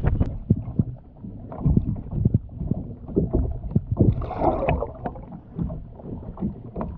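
Irregular knocks and clunks of handling and gear against a plastic fishing kayak, with a low wind rumble on the microphone and a short burst of noise about four seconds in.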